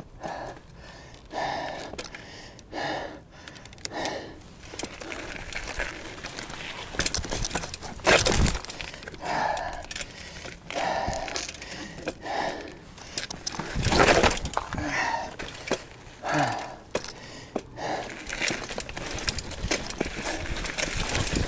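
A mountain biker's hard, rhythmic breathing on a steep rocky climb, short puffs about once a second. Two louder thumps come partway through.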